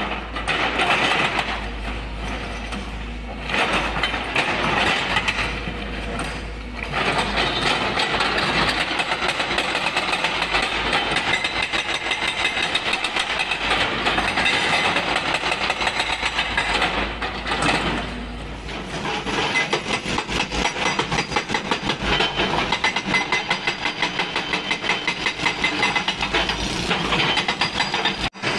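Epiroc (Atlas Copco) hydraulic rock breaker on a Volvo EC210D excavator hammering stone in runs of rapid, even blows. It stops briefly a few times between runs.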